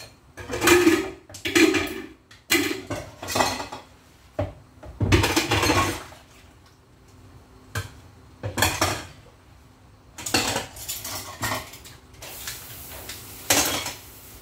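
Cooking pans, dishes and metal utensils clattering and clinking as they are washed up, in a string of separate knocks and scrapes.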